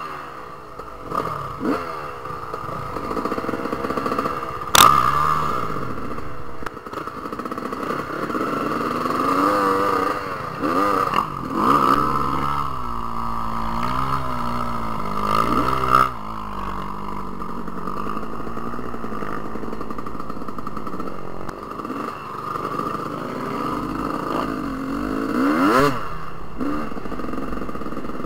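Dirt bike engines revving up and down as they ride a rough dirt road, the pitch rising and falling over and over. There are a few sharp knocks, the loudest about five seconds in.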